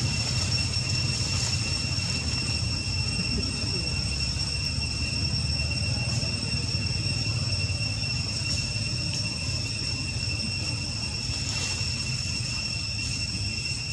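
Steady low rumble with a constant high-pitched whine over it.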